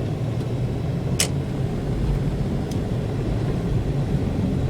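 Inside a BMW's cabin, the steady low rumble of the car driving through slushy snow: engine and tyres on slush. One sharp click comes about a second in.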